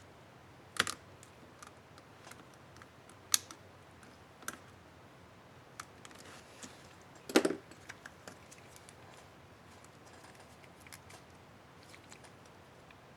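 Plastic clicks and snaps of a laptop keycap and its clips being handled and pressed onto an Asus K55A keyboard: four sharp clicks with small ticks between, the loudest and fullest about seven seconds in.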